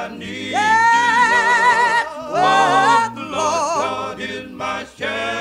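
Gospel song: a singer holds a long note with vibrato, then runs through shorter wavering phrases, over a low sustained accompaniment.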